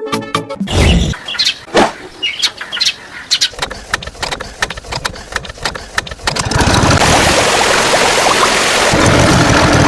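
A vehicle engine sound: irregular clicks and short bursts at first, then the engine running steadily and loudly for a couple of seconds from about six and a half seconds in.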